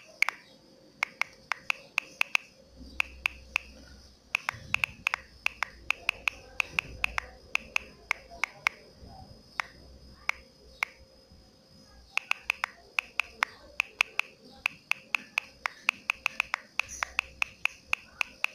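Phone touchscreen keyboard clicks, one short click per key tapped while typing, in quick irregular runs with a few brief pauses between words.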